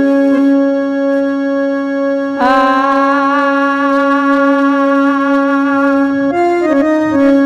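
Live stage music from an electronic keyboard: a steady held low note, with a wavering melody line above it entering about two and a half seconds in and a few quick note changes near the end.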